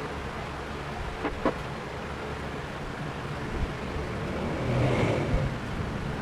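ILIFE X5 robot vacuum running in damp-mopping mode, a steady motor hum, with two light knocks about a second and a half in and a swell in the sound near the end.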